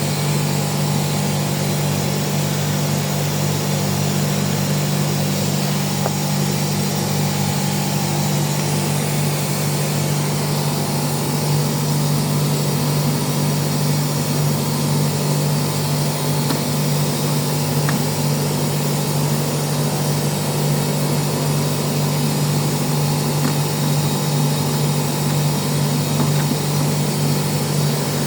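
Air compressor running steadily with a constant low hum.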